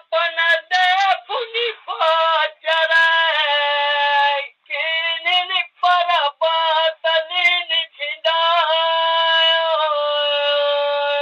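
A high voice singing a Bagheli birha folk song in short, broken phrases, then holding one long steady note from about eight seconds in.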